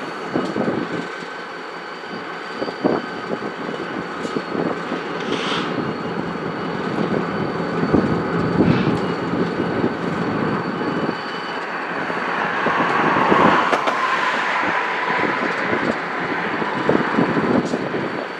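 Freight train rolling through a rail yard: a steady rumble of wheels on rail with repeated clanks and knocks of cars, faint steady high squeals, and the noise swelling louder for a few seconds past the middle.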